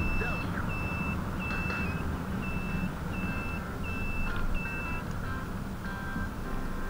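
Repeated high electronic beeping, short even beeps about one and a half a second, that stops about five seconds in, over a steady low rumble of wind and road noise.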